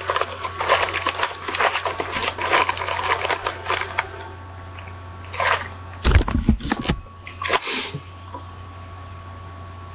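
Crinkling and crackling of the plastic shrink-wrap on a hockey card box being handled close to the microphone, busiest in the first four seconds, with a few low thumps of handling about six seconds in. A steady low hum runs underneath.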